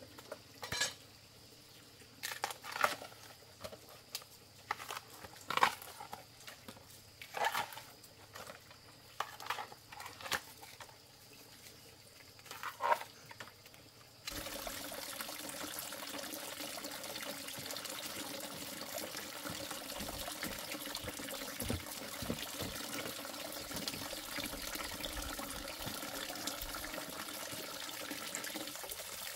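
A dozen or so scattered knocks and clatters over the first half, then, after an abrupt change, steady running or pouring water.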